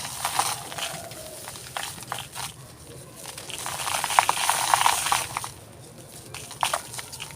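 Dry, brittle material being crumbled by hand fast for ASMR: crisp crackling and crunching in clusters, loudest about four to five seconds in.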